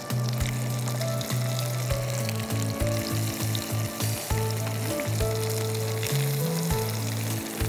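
Turmeric-marinated giant freshwater prawns sizzling as they are laid into hot oil and ghee in a frying pan, the start of a light fry. Background music with sustained low notes that change pitch every second or so plays underneath.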